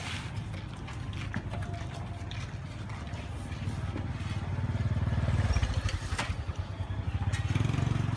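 A low, rapidly pulsing small-engine rumble, like a motorbike running close by, getting louder about halfway through. A few sharp clicks of metal tongs on the wire grill rack come over it.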